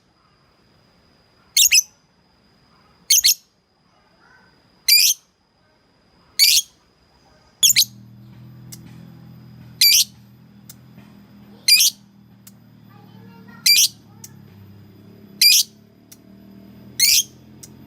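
Lovebird giving short, shrill, high-pitched calls, about ten of them, one every second and a half to two seconds: a lovebird calling to a rival. A low steady hum starts about halfway through.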